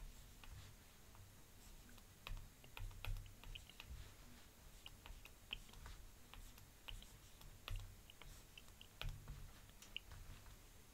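Faint, irregular clicks and taps of a stylus on a pen tablet as handwriting is written, with a few soft low thumps.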